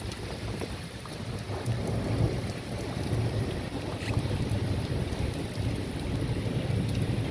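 Heavy rain in strong gusting wind, the gusts buffeting the microphone as a low, uneven rumble.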